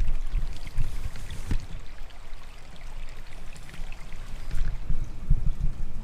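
Wind buffeting the microphone outdoors, with irregular low thumps and faint rustling.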